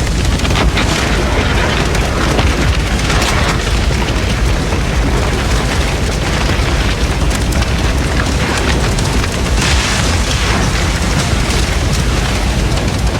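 Large building fire burning fiercely: a constant deep rumble with dense crackling and snapping, swelling louder a few times.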